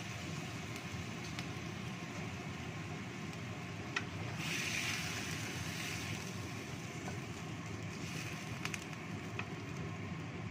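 Chicken simmering in water in a wok over a gas stove, a steady rushing hiss, with a few sharp clicks of a wooden spatula stirring against the wok. A brighter hiss swells briefly about four seconds in.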